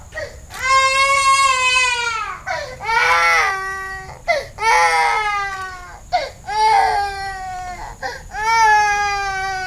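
Baby crying hard: five long, high wails in a row, each about a second long and sagging a little in pitch, with short gasping breaths between them.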